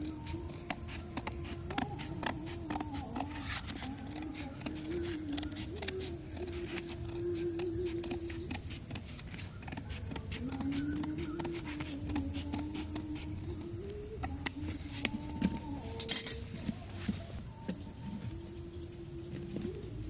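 Scissors snipping around the edge of a round sign disc, a run of quick cuts, with a few sharper snips about three-quarters of the way through. A faint wavering tone runs underneath throughout.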